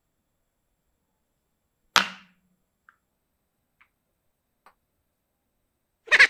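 A single sharp wooden clack about two seconds in, as wooden toy pieces are set down in a wooden tray, followed by a few faint ticks. Right at the end a rapid rattling series of pulses begins.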